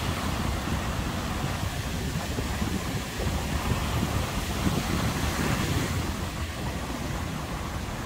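Sea surf breaking and washing up a sandy beach in a steady rush, with wind buffeting the microphone. The wash swells briefly about five seconds in.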